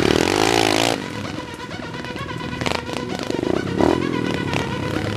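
A 125cc pit bike's single-cylinder four-stroke engine revving as the bike rides past, its pitch swinging up and down in the first second. It then falls back quieter, with another short rev about three and a half seconds in.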